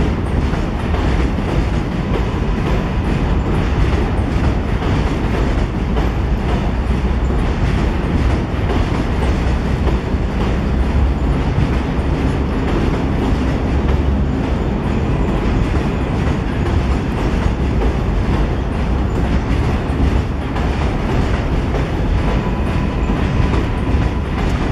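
An R188 7 train rolling along the elevated steel structure: a steady loud rumble with fast clickety-clack of wheels over the rails. A faint thin wheel squeal comes in near the end.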